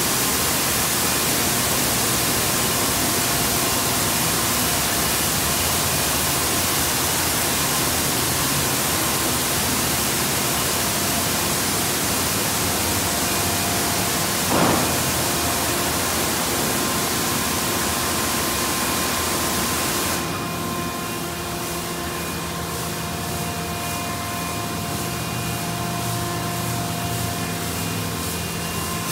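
D&S Quicksilver touchless car wash spraying high-pressure water onto a car, a steady loud hiss, with one brief louder burst about halfway. About two-thirds of the way in the spray shuts off, leaving the lower steady hum of the wash machine's motors and pumps.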